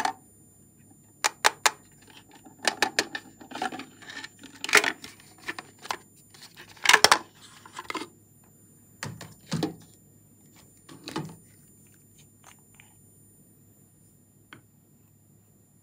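Hard plastic toy container handled and opened by hand: a quick run of sharp clicks, then clattering and scraping of plastic parts, and a few duller knocks.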